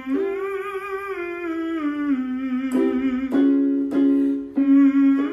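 A man humming a vocal resonance exercise, gliding down a short scale in steps with a slight waver. About halfway through, an accompanying instrument strikes a chord and then single notes, giving the starting pitch for the next, higher repetition.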